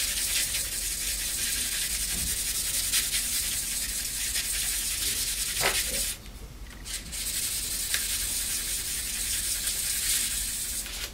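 Steel knife blade being stroked rapidly back and forth across 1200-grit wet/dry sandpaper wetted with WD-40, a steady scratchy hiss: the final grit in convexing and sharpening the edge. A short squeak comes about six seconds in, the strokes pause for a second, then resume and stop near the end.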